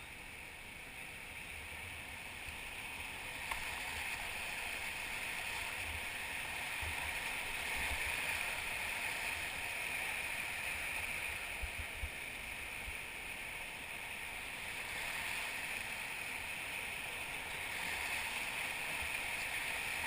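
Whitewater rushing steadily around a drifting raft. It swells a little about eight seconds in and again near the end, with scattered low bumps on the microphone.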